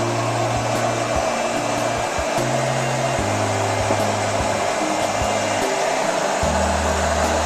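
Handheld hair dryer running steadily, its fan blowing with a continuous rushing whoosh after being repaired.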